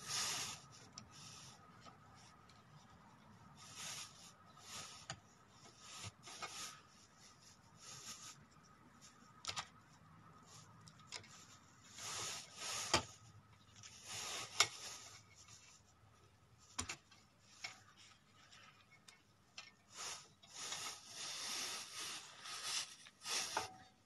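Hands working a power switch out of a sheet-metal case and pulling its wires and spade connectors free: irregular rubbing and scraping, with a few sharp clicks in the middle.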